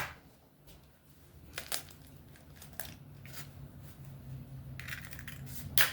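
Quiet kitchen handling noises: a few light clicks and knocks, with a short crinkle about five seconds in.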